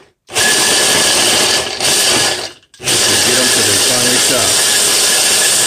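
Braun hand blender with its chopper bowl attachment running to finely chop pecans. The motor runs in pulses of a few seconds, stopping briefly just after the start and again about halfway through.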